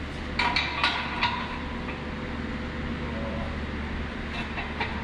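Metal clinks from a steel engine stand as its locking pin is set and the mounting head is handled: three or four ringing clinks about half a second to a second and a half in, then quieter handling noises. A steady low hum runs underneath.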